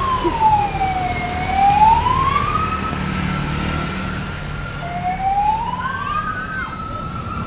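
Fire truck siren wailing: its pitch slides slowly down and back up, holds high, then drops and climbs again about five seconds in. Road traffic rumbles underneath.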